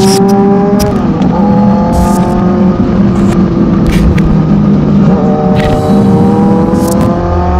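Kawasaki Z900's 948 cc inline-four engine through a loud full-system aftermarket exhaust, revving under acceleration. Its pitch climbs steadily, drops about a second in, and climbs again from about five seconds in.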